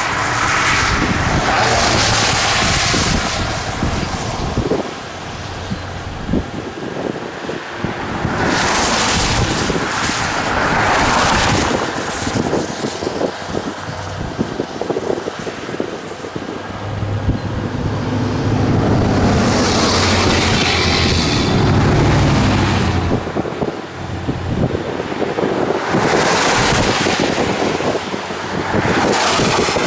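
Gusty wind buffeting the microphone, swelling and fading every few seconds, with road traffic passing; a vehicle engine hums by about halfway through.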